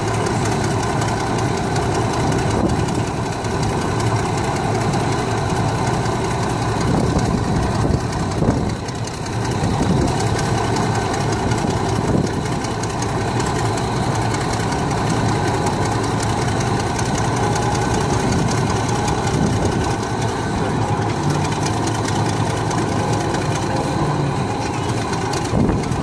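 Engine of a large vintage steel-wheeled tractor running steadily at a standstill.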